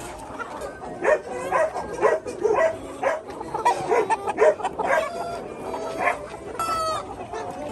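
A flock of chickens clucking and squawking in many short, overlapping calls, with one higher, stepped call near the end.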